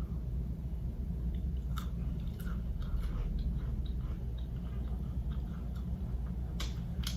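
Close-up mouth sounds of someone chewing fried fast food: scattered wet clicks and smacks, a few sharper ones near the end, over a steady low hum.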